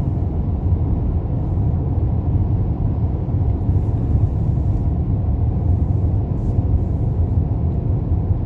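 Steady low rumble of a moving car, its engine and tyres on the road, heard from inside the cabin while it drives at speed.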